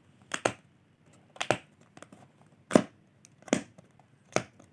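Product packaging being cut open: about six short, sharp cutting sounds with crinkling, roughly one a second.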